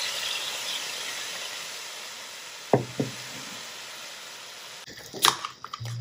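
Soy sauce sizzling on a hot cast-iron skillet around a block of thick-fried tofu, the sizzle slowly dying down. Two knocks just under halfway through as bottles are set down on the wooden table, then a sharp crack and brief fizz near the end as a beer can is opened.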